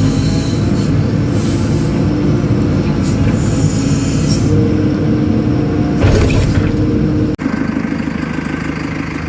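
JCB 4CX backhoe loader's diesel engine running hard, with a steady hydraulic whine over the engine rumble. About seven seconds in the sound breaks off abruptly, and the engine then runs a little quieter and more evenly.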